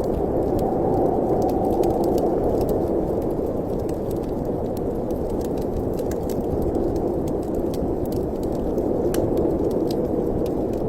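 Wood fire crackling in a fireplace, with many small sharp pops over a steady wind noise.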